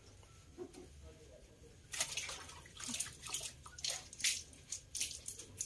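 A wet cloth washing a cow's udder: water splashing and dripping in a quick, irregular run of splashes, two or three a second, starting about two seconds in.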